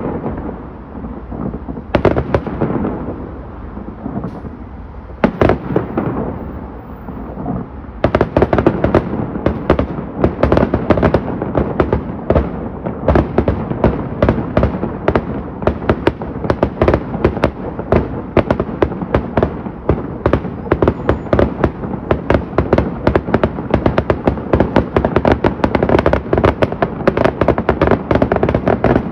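Fireworks going off: a few separate bangs in the first seconds, then from about eight seconds in a dense, continuous barrage of rapid bangs and crackles.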